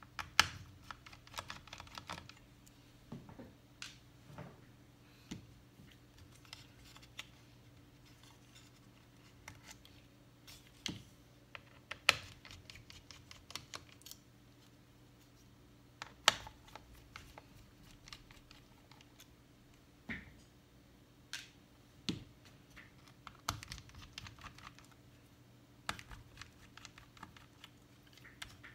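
Small, irregular clicks and taps of a T5 screwdriver and tiny screws inside an open MacBook Pro A1502 as the logic board is being unscrewed, with a few sharper clicks among them. A faint steady hum lies underneath.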